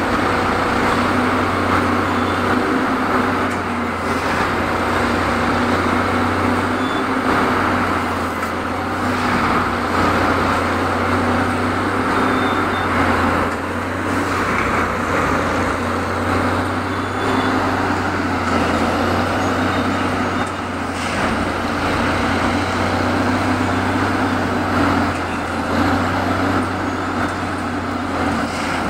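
A Plasser Unimat split-head track tamping machine running steadily: a loud, constant machine noise over a low hum.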